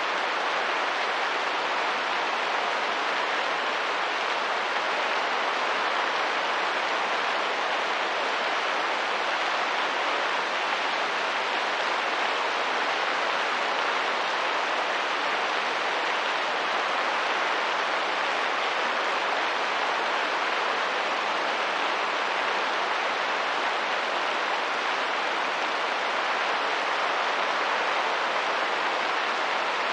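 Steady rain and wind: an even, unbroken hiss that stays level throughout.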